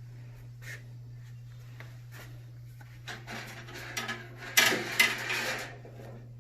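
A bandsaw blade being worked off the wheels of a 17-inch bandsaw: a few light clicks, then scraping and clattering from about three seconds in, with two sharp knocks near the five-second mark. A steady low hum lies underneath.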